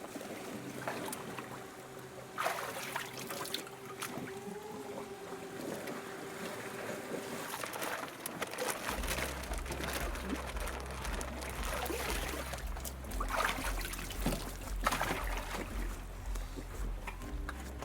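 Water trickling and sloshing, with a few short splashes. A steady tone hums over the first half, and a low, stepped bass pattern comes in about halfway.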